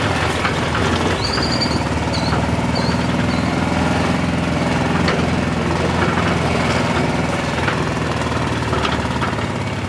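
A motor vehicle's engine running steadily at an even speed, with a few short high chirps over it between about one and three and a half seconds in.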